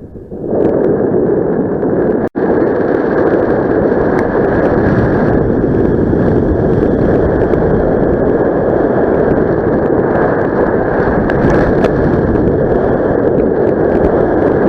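Steady rush of wind buffeting the microphone of a camera carried on a paraglider in flight. The sound drops out for an instant about two seconds in.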